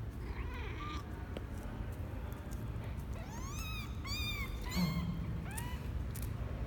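A very young kitten, about twelve days old, mewing: a string of short, high calls that rise and fall in pitch, coming faster in the second half.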